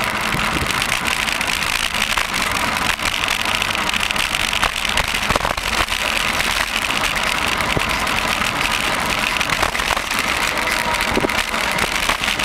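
Steady rushing noise of a bicycle ride: wind on the microphone over a low rumble of tyres on smooth asphalt, with a few faint clicks.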